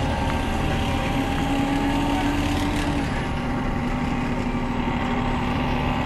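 Steady engine drone and road noise heard inside a moving bus, with a constant hum that drops slightly in pitch about halfway through.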